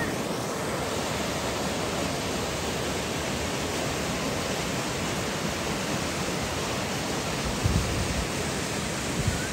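Steady, even rush of a waterfall, a hiss spread across all pitches. There are a couple of brief low thumps near the end.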